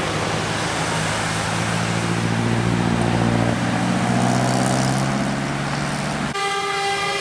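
A heavy road vehicle's engine running as it passes, its note rising a little midway. About six seconds in, a vehicle horn suddenly starts sounding one steady note.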